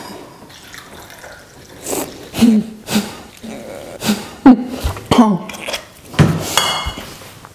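Red wine poured from a bottle into a glass, then a run of gulps and short throaty sounds as wine is drunk straight from the bottle. A brief rasping noise comes near the end.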